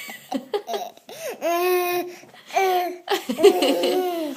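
Toddler laughing, with short giggles and then two long drawn-out high peals, the first about a second and a half in and the second about three seconds in.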